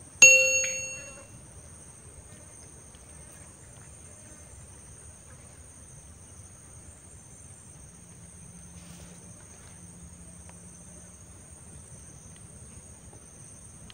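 A notification bell sound effect rings once just after the start and fades away within about a second. Behind it and after it, insects drone steadily at a high pitch.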